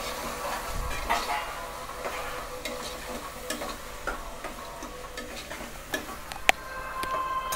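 A steel spoon stirring and scraping onions, green chillies and tomatoes frying in oil in a pressure cooker pot. There is a soft sizzle and scattered light clicks of the spoon against the pot, with one sharper click near the end.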